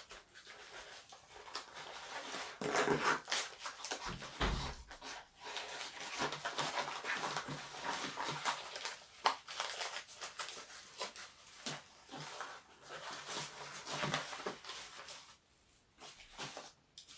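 Plastic packaging rustling and crinkling as a pair of e-bike brake levers is unwrapped by hand, with a brief low thump about four seconds in.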